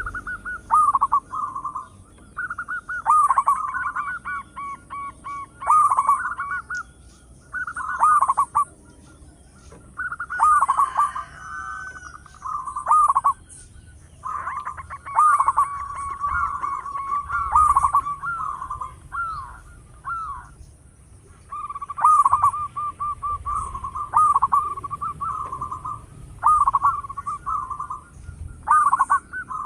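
Zebra dove cooing: repeated phrases of quick staccato coos, a new phrase every two to three seconds.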